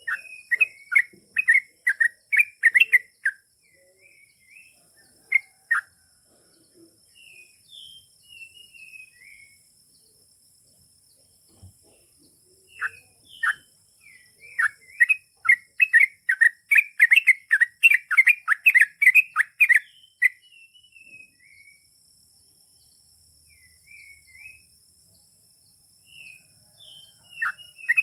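Yellow-vented bulbul (trucukan) singing its long rapid song: a fast run of loud chattering notes in the first three seconds, a longer run from about 13 to 20 seconds, and softer scattered calls in between. A faint steady high tone and hiss sit behind it.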